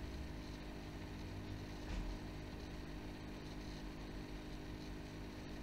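Steady low background hum with a faint knock about two seconds in.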